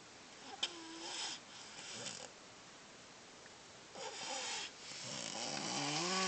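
Snoring: a few noisy breaths a couple of seconds apart, the last one near the end carrying a drawn-out pitched snore that rises slightly.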